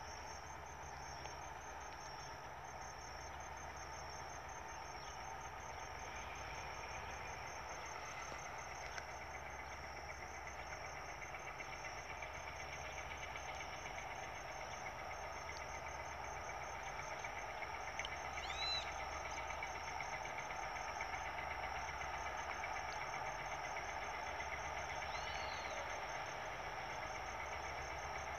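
Distant diesel locomotive engine running, slowly growing louder, under a steady high insect trill, with a couple of short bird chirps in the second half.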